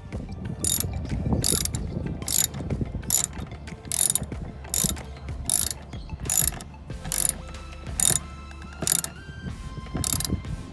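Hand socket ratchet tightening a screw, its pawl clicking in about a dozen short bursts, a little more than one a second, as the handle is swung back and forth.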